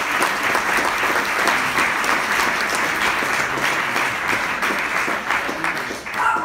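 Audience applauding steadily in a hall, the clapping thinning out near the end.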